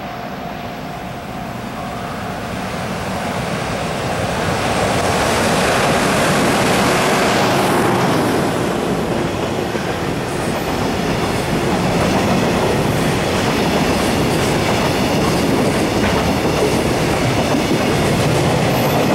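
Container freight train approaching and passing through the station at speed. The running noise grows louder over the first several seconds, then holds steady as the wagons go by, with the wheels clicking over the rail joints.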